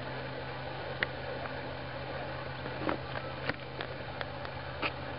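Handling noise from a cheap handheld digital camera being moved about: about seven light clicks and taps over a steady low hum and hiss.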